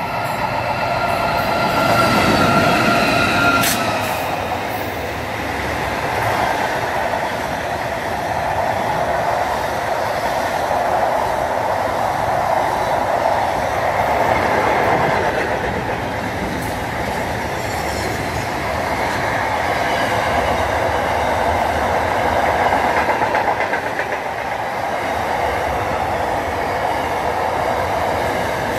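Freight train of tank and hopper wagons passing at speed, a continuous noise of wheels on rails that swells and eases as the wagons go by. In the first few seconds, as the locomotive approaches, a steady high tone sounds over it and stops abruptly.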